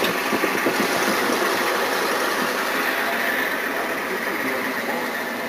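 Steady engine and road noise of a car, heard from inside the moving car's cabin, easing off slightly near the end.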